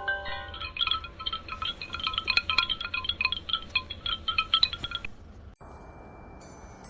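Tinkling chime sound effect: a quick flurry of short bell-like notes that stops about five seconds in, leaving a quiet hiss with a faint steady high tone.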